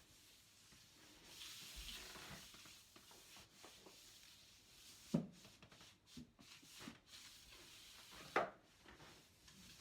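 Faint, soft rubbing and swishing of a Quickle Wiper dry-sheet floor wiper being worked over the floor. Two sharp knocks come about five and eight seconds in, with a few lighter clicks between.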